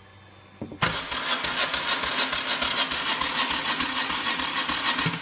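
Starter cranking the 2.0-litre engine of a 2008 Hyundai Tiburon, beginning about a second in: a fast, even whirring pulse with no firing. The engine spins without catching, which is 'not a good sound' here: the timing belt has snapped.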